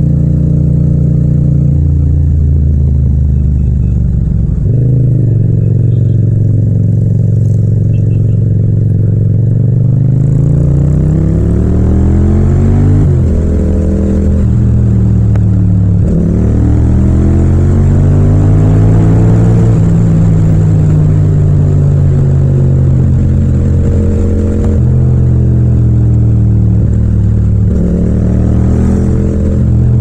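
Yamaha MT-07 (FZ-07) parallel-twin engine under way, heard raw without wind noise. It holds a steady note for the first few seconds, then rises in pitch as the bike accelerates, drops back sharply twice around the middle, and rises and eases off again near the end.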